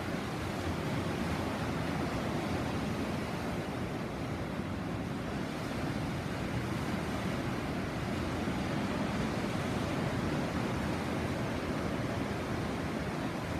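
Sea surf washing steadily onto the shore, a continuous rushing with gentle swells in loudness.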